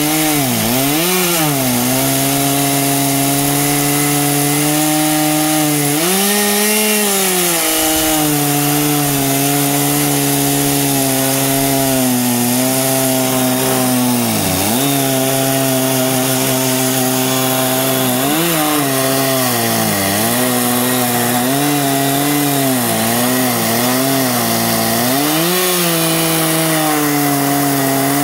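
Two-stroke chainsaw on an Alaskan chainsaw mill running at high speed while ripping through a log, its pitch holding steady with brief dips now and then as the cut loads the engine.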